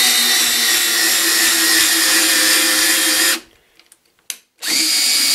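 18 V Makita cordless drill running at a steady speed, turning a socket on a drill press's table-lift crank shaft to wind the table up. It stops about three and a half seconds in, gives a few light clicks, then starts again a second later to wind the table back down.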